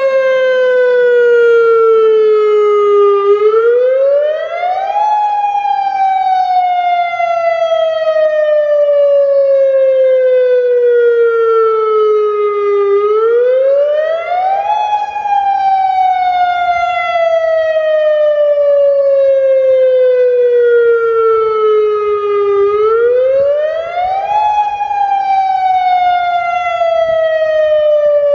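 Federal Signal Modulator outdoor warning siren sounding its wail cycle during a test. The pitch rises quickly for about two seconds, then falls slowly for about eight seconds, and repeats, with three rises in all.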